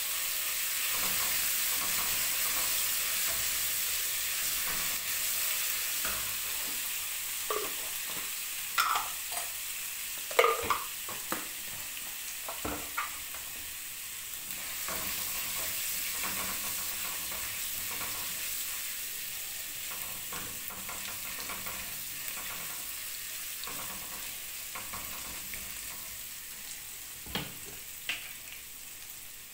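Ginger-garlic paste and cumin seeds sizzling in hot oil in a nonstick kadai, with a steady hiss that slowly dies down. A silicone spatula stirs through it, scraping and tapping the pan now and then, mostly in the middle and again near the end.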